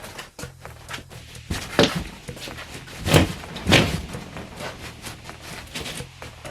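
Knocks and thuds from demolition work as wall pieces are handled, with three louder thuds about two, three and three and a half seconds in among smaller clicks and footsteps.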